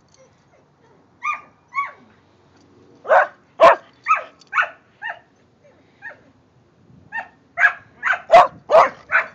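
A dog barking in short, high-pitched barks: two single barks a second or so in, a run of five in the middle, then a quicker, louder string of barks near the end.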